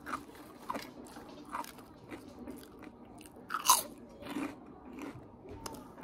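Close-up chewing of crispy pork rinds (chicharrones): irregular crunches as the puffed skins are bitten and chewed, the loudest a little past the middle.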